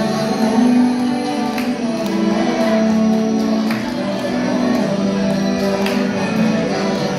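Choir singing a hymn with instrumental accompaniment, holding long sustained notes, with light jingling percussion strokes throughout.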